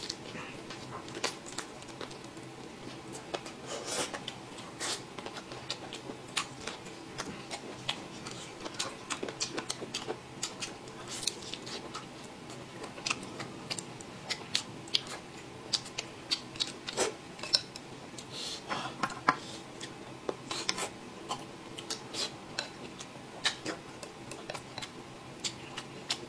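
Close-up eating sounds of a man chewing chicken drumstick meat off the bone: wet chewing and lip smacks, with many irregular sharp clicks of mouth and teeth.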